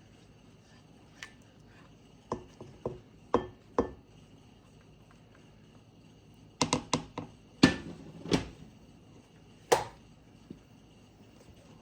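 A series of sharp hard knocks and taps from kitchen work, in irregular groups: four spaced knocks, a quick flurry of several, then a few single louder ones.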